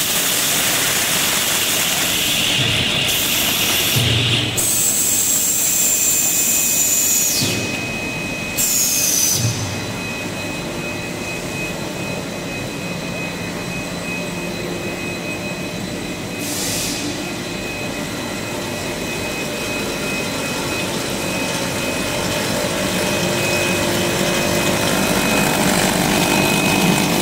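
Air bubble film making machine running: a steady whir and hiss of motors and rollers with a constant high whine, and a stronger hiss in the first few seconds. The sound changes abruptly several times.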